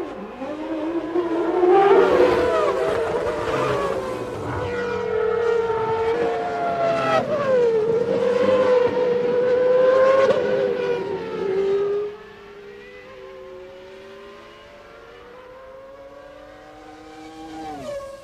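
1995 Formula One cars' 3-litre racing engines at high revs, the pitch climbing and dropping with gear changes as cars pass. It drops sharply in level about twelve seconds in to quieter, more distant engine sound, and a car passes with a falling pitch near the end.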